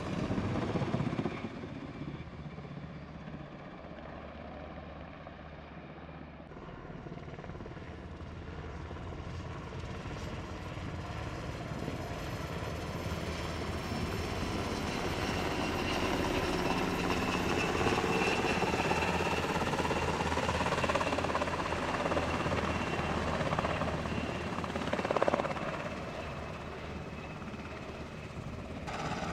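Navy H-60 Seahawk helicopters in flight: the rotor and engine noise fades a few seconds in, then grows steadily louder as one comes close, with a steady high whine. It peaks briefly about three-quarters of the way through and eases off near the end.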